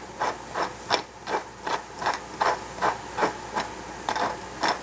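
Hand-twisted pepper mill grinding peppercorns: a steady run of short crunching bursts, about three a second, one with each twist of the mill.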